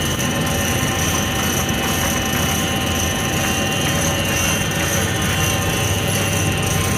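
Steady, loud machinery drone with several steady tones held throughout, the background running of heavy plant around a pump job.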